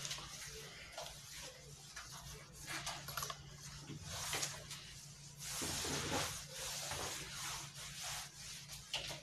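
Rustling and handling noise close to the microphone, irregular hissy scrapes and a few clicks, loudest a little past the middle, over a steady low electrical hum.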